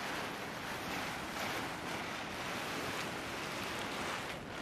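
Wind blowing steadily, an even rushing noise with no pauses.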